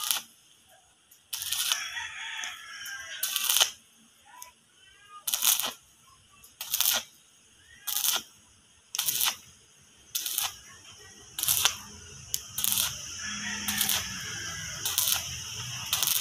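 Stick (arc) welding on a metal gate frame: short bursts of arc crackle about once a second as the electrode is struck and tacked, then a steadier, longer run of crackle in the last few seconds.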